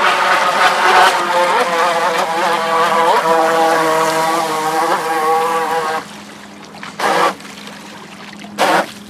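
Electric RC speedboat's LiPo-powered motor whining at full throttle over a hiss of spray, its pitch wavering as the boat turns. About six seconds in it throttles off, followed by two short throttle bursts.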